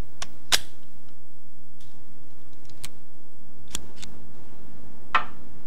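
Revolver being handled: a few sharp metallic clicks spaced irregularly, over a faint steady hum.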